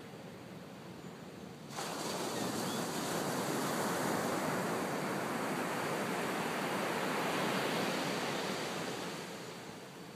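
Ocean surf: a steady rushing hiss of breaking waves that comes in suddenly about two seconds in and fades away near the end.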